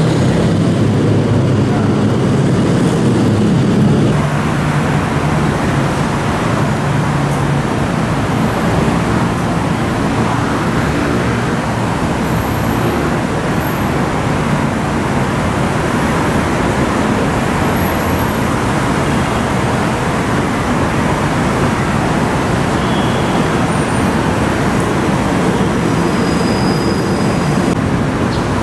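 A diesel locomotive's engine droning as the train approaches, the drone stopping abruptly about four seconds in. Then a steady rumble of a passing diesel train mixed with road traffic.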